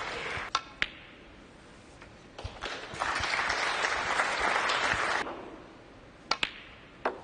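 Snooker balls clicking sharply twice about half a second in, then a few seconds of audience applause, then near the end the cue tip striking the cue ball and further ball-on-ball clicks.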